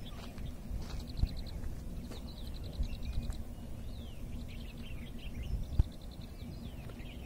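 Birds calling: quick high trills and short down-slurred chirps, repeated several times over a low rumble.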